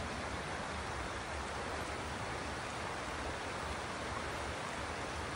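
Steady rush of a shallow, rocky river flowing over riffles.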